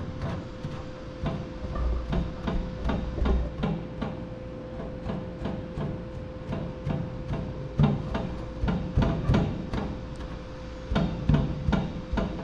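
Damp microfiber cloth patted again and again against a wet-painted truck fender, an irregular run of short soft taps several times a second, dabbing the paint to blend the colours. A steady hum runs underneath.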